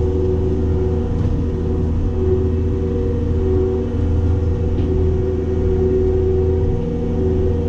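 Cat 262D skid steer's diesel engine running steadily under load, driving a Loflin open-front hydraulic brush cutter.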